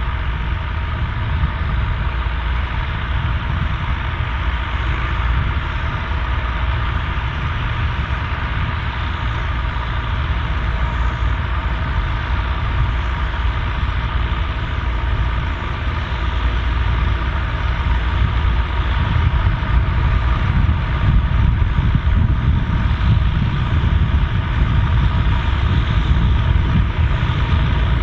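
Volvo BM turbo tractor's turbocharged diesel engine running steadily with its turbo whistle, getting louder about halfway through.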